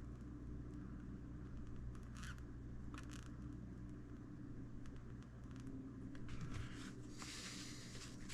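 Faint handling noises of a small oil-filled RC crawler shock being worked by hand to bleed out air: a few light scrapes and clicks, with a little more rustling later on, over a steady low hum.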